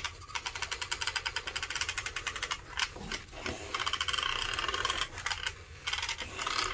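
Rapid mechanical ratcheting clicks, about fifteen a second, in several runs broken by short pauses, during adjustment of an RC buggy's slipper clutch.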